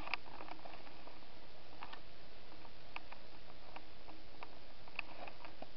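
Quiet pause with a steady hiss and a few faint, irregular ticks and clicks scattered through it.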